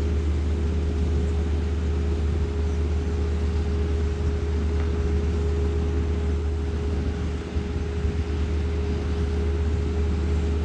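Grain-handling machinery running steadily while trucks are emptied into a grain bin: a loud, constant low hum with a steady whine over it and no change in speed.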